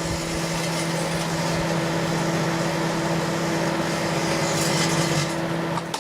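Microwave oven running: a steady electrical hum from its high-voltage transformer over fan and cavity noise. It cuts off suddenly near the end as the oven stops.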